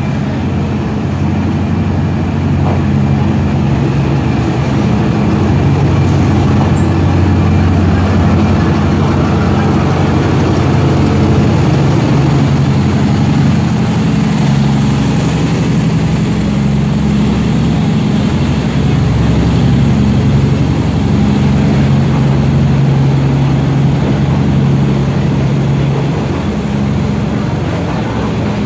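A D19E diesel-electric locomotive hauls a passenger train into a station: a steady, loud, low diesel engine hum, with the coaches rolling slowly past close by.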